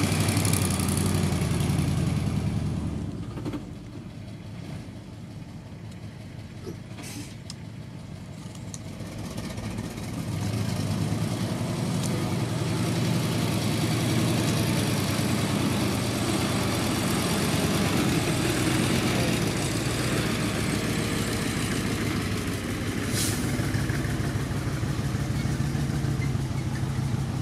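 Heavy diesel engine of a loaded dump truck running as it drives over dirt. It drops quieter about three seconds in and comes back louder from about ten seconds, with a few sharp clicks.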